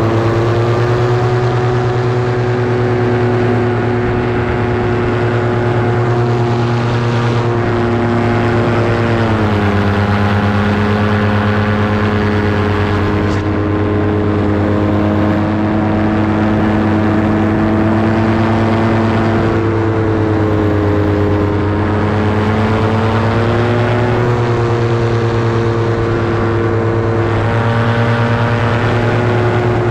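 Engine and propeller of a light aircraft running steadily in flight. The pitch drops about nine seconds in and rises again around twenty seconds in as the throttle is eased and then opened.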